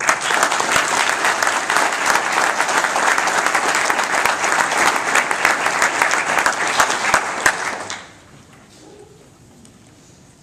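Audience applauding: dense clapping that starts at once and dies away about eight seconds in, leaving quiet room tone.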